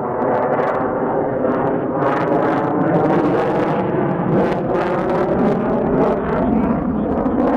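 F-22 Raptor's twin jet engines in afterburner during a display pass: a loud, steady roar shot through with sharp crackles.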